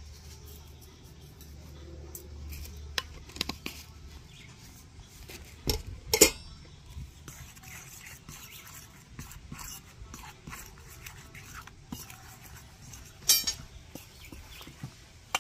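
Scattered clinks and knocks of kitchen utensils against dishes as a flour batter is being made, with a louder clatter about six seconds in and another near the end.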